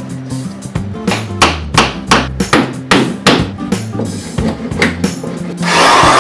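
A series of hammer blows on wood, about two or three a second, over background music. Near the end a handheld power tool starts and runs loudly and steadily.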